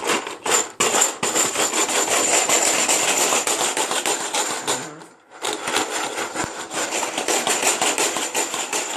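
A hard object being shaken by hand, a fast continuous rattle of many small clicks, breaking off briefly about five seconds in and then starting again.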